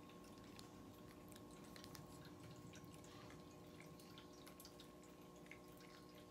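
Near silence: a faint steady room hum, with scattered soft, wet little clicks from a lip gloss wand being worked over the lips.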